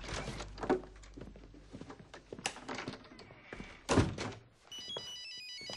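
Lighter knocks and clicks, with one heavy thunk about four seconds in. Near the end comes a short run of quick electronic beeping tones that step up and down in pitch.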